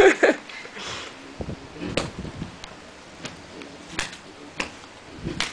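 A small dog rubbing and flopping about on a foam mattress, the restless rubbing of a dog just after a bath: scattered thumps and scuffs, several over a few seconds.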